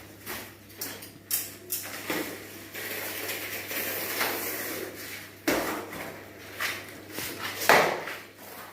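Clatter and knocks of objects being handled, with a stretch of scraping in the middle and one loud knock near the end.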